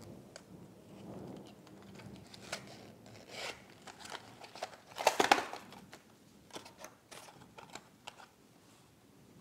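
Small cardboard product box being opened by hand: the flap pulled open and paper cards and stickers slid out, with scattered clicks and rustles and a louder rustle about five seconds in.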